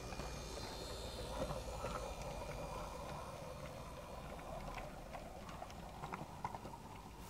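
Wheels of small-scale garden-railway goods wagons rolling slowly along metal track, clicking irregularly over rail joints with a light rattle.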